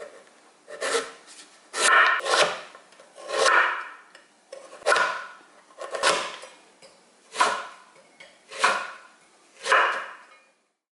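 Hard quince fruit being worked by hand with repeated rasping strokes, about eight in all, roughly one every second and a bit, each swelling and then fading.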